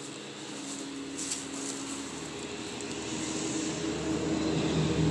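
A steady mechanical drone with a low hum, growing gradually louder.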